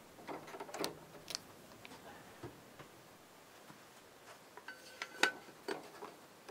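Quiet handling noises on a turntable: a few light clicks and knocks as the headshell is taken off the tonearm, then soft taps and a brief squeak as the rubber platter mat is laid onto the platter.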